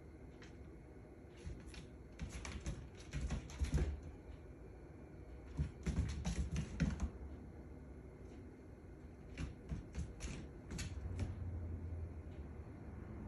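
A cat's claws and paws skittering and tapping on a hardwood floor as it pounces and scrambles, in three quick flurries of clicks.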